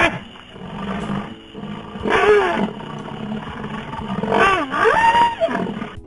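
A large wild animal calling: two loud drawn-out cries whose pitch bends, about two seconds in and again from about four and a half seconds, over a rough lower rumble.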